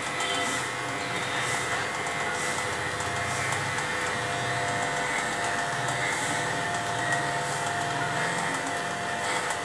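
Corded electric dog clipper running with a steady buzz as it shaves through a St. Bernard's matted coat.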